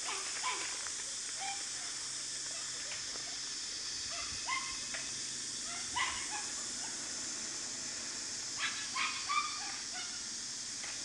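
Puppy whimpering in short, high yips every second or two, with a quick run of them near the end, over a steady high hiss.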